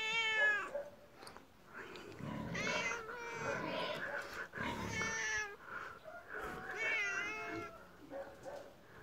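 Tabby cat meowing in a string of four or five drawn-out calls, the first falling in pitch: an annoyed cat being pestered to play.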